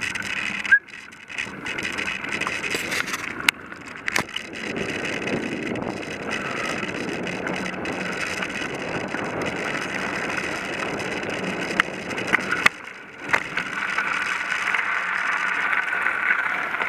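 Bicycle rolling along a gravel path: a steady noise of tyres on gravel and the bike rattling, broken by a few sharp clicks or knocks.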